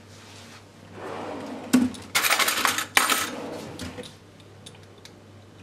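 A quick run of bright metallic clinks and rattles lasting a couple of seconds, starting with a sharp click, as small metal utensils are handled and knocked together.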